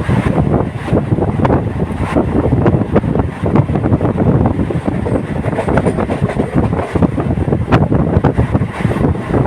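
Local passenger train running at speed: a steady rumble and rattle of wheels on the track with many irregular clacks, and wind buffeting the microphone.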